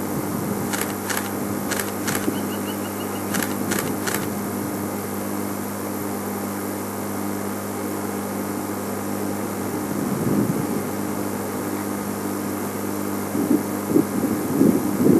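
Steady low mechanical hum, with a handful of sharp clicks between about one and four seconds in.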